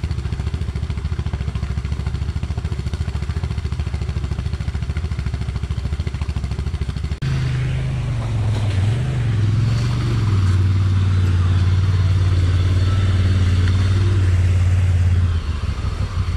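ATV engine idling with low, even pulses. After a cut about seven seconds in, it runs at higher revs under way; the pitch dips and rises briefly, then holds steady, and it eases off near the end.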